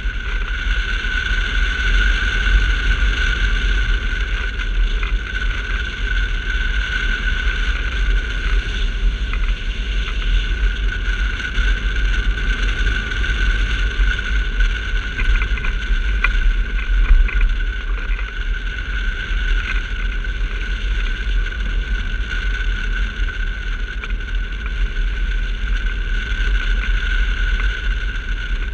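Airflow buffeting the microphone of a camera mounted on a hang glider in flight: a steady low rumble with a constant high whistle over it.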